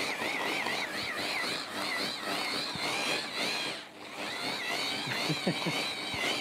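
Electric hand-blender chopper running, mincing prawns and vegetables; its motor whine wavers up and down in pitch as the chopper is shaken while it chops. The whine dips briefly about four seconds in.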